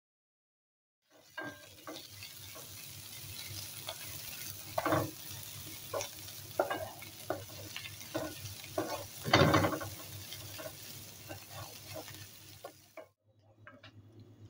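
Vegetables sizzling in a frying pan as a wooden spatula stirs them, with a steady hiss and frequent knocks and scrapes of the spatula on the pan, two of them louder. It starts after about a second of silence and cuts off suddenly near the end, leaving only quieter soft clicks.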